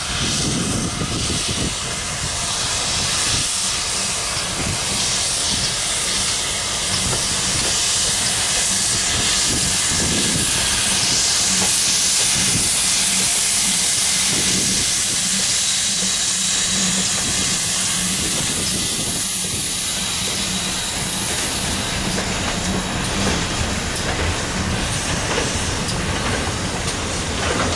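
GWR Modified Hall class 4-6-0 steam locomotive running past with a strong hiss of steam, hauling a goods train. The hiss is loudest in the middle, then the wagons roll by on the rails.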